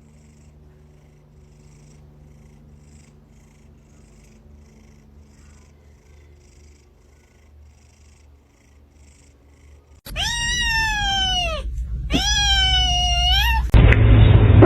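Domestic cat purring faintly for about ten seconds, then two loud, drawn-out meows. Near the end comes a louder, lower cry.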